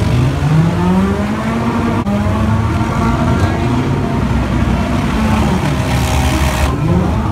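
Engines of several demolition derby cars running and revving in the arena, their pitch rising and falling as drivers gun them, with a steady din of exhaust noise underneath.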